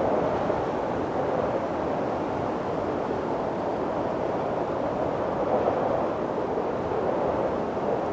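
Steady wind blowing with slow gusting swells, a full rushing noise.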